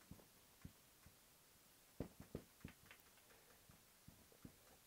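Near silence broken by faint, scattered taps and strokes of a marker writing on a whiteboard, most of them a couple of seconds in.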